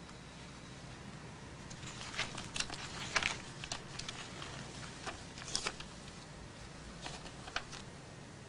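Scattered short rustles and taps over a low steady room hum.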